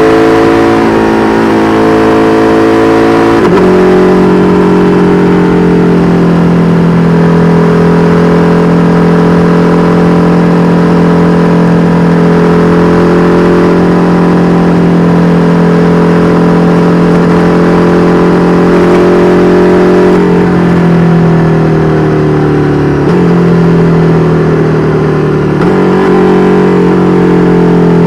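KTM 1290 Super Duke R Evo's V-twin running through an Austin Racing V3 Mini exhaust, heard from the moving bike. It pulls and shifts up a gear about three seconds in, holds a steady cruising note, then slows near the end with two downshifts, each a step up in pitch.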